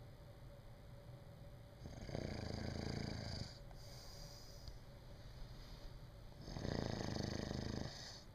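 A person snoring in sleep: two loud snores, each about a second and a half long and about four and a half seconds apart, with quieter stretches between.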